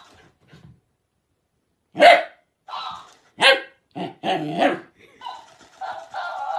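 A dog barking and growling at a talking-hamster toy in a string of short bursts, starting about two seconds in; the first bark is the loudest.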